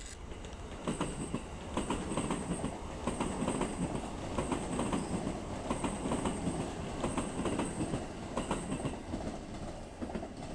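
Narita Express electric train passing close below, with a steady rumble and repeated clacks of its wheels over the rail joints. A thin high whine comes and goes over it, and the rumble eases near the end.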